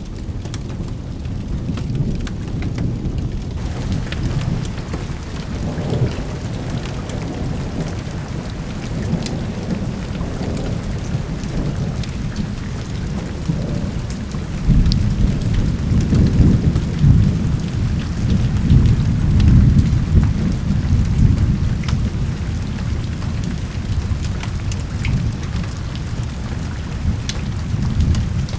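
Steady rain hissing and pattering, with the high hiss filling in a few seconds in. A long low roll of thunder swells about fifteen seconds in and rumbles on for several seconds before easing.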